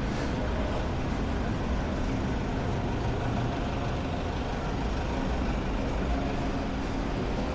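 Steady low rumble of city street traffic and engine noise, even throughout with no distinct events.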